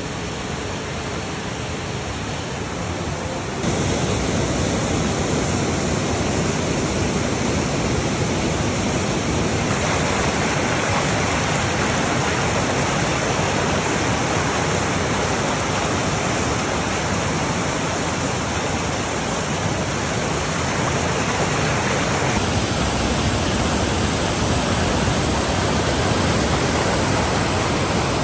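Whitewater cascade of a forest stream rushing over boulders: a steady, loud rush of water. It is quieter at first, then jumps louder about four seconds in.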